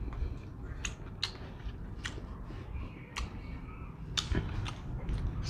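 Someone eating: scattered light clicks and taps of a fork and spoon against a ceramic plate, with chewing.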